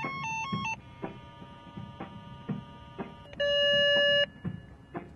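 A quick string of DTMF touch-tones sent down the telephone pair from a handheld cable test set. About three seconds in comes a steady buzzy tone for about a second from the Tel-Line Assistant far-end device, the sign that it has gone into test mode.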